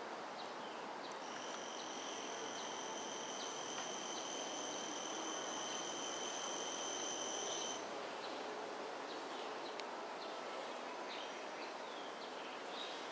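A high, steady insect whine, starting about a second in and cutting off sharply near eight seconds, over a steady background of outdoor noise with faint scattered chirps.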